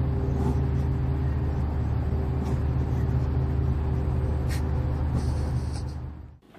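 A steady low rumbling drone with a few faint clicks, which fades and cuts off abruptly near the end.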